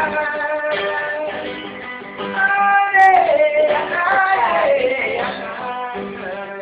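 A man singing while strumming an acoustic guitar; his sung notes are held and slide downward a few times through the middle.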